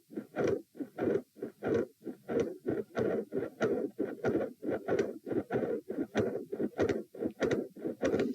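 Human heartbeat heard through a chest recording, a regular beat of about one and a half beats a second, each beat a cluster of thuds with a midsystolic murmur between them.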